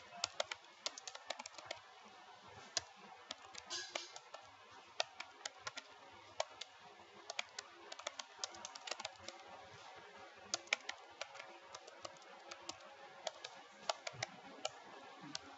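Computer keyboard being typed on: irregular keystrokes, some in quick runs, with short pauses between.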